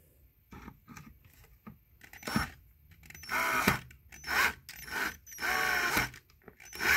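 Cordless drill-driver running in several short bursts from about three seconds in, its motor pitch rising and falling as it drives furniture bolts.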